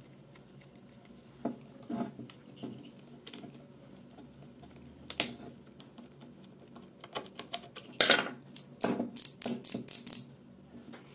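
Small clicks, taps and scrapes of a screwdriver driving a screw into a hair clipper's housing and of the clipper's plastic and metal parts being handled, with a quick run of louder clicks and scrapes about eight to ten seconds in.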